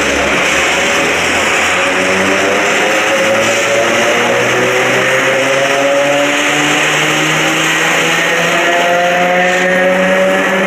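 CPTM electric multiple unit ER 4407 pulling away from a station. Its traction motors give a growling hum of several tones that rise steadily in pitch as the train picks up speed.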